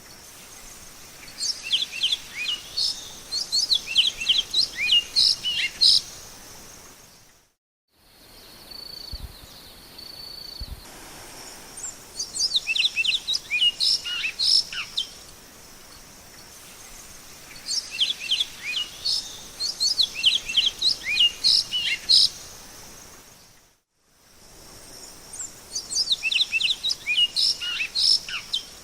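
Great-billed seed finch (bicudo) singing: four phrases of quick, clear whistled notes, each a few seconds long, with pauses between them. A steady high hiss of insects runs underneath. The sound cuts out completely twice for a moment where the recording is spliced.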